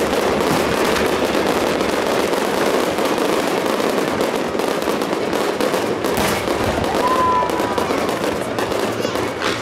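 Fireworks display: many shells and low-level effects going off at once, a continuous dense crackling with rapid overlapping pops.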